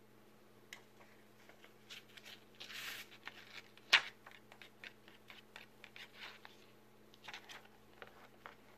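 Paper rustling and crinkling as a cat paws at the pages of an open notebook. Scattered light ticks, and one sharp tap about four seconds in.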